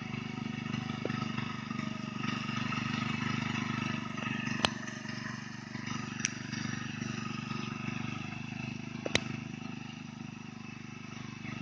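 Rice harvester's engine and machinery running steadily with a constant drone. Three sharp clicks stand out about halfway through and again near three quarters of the way in.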